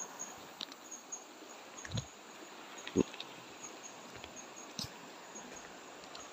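Footsteps on river rocks: a few dull thuds, the loudest about two and three seconds in. Behind them a faint high insect chirp repeats about twice a second.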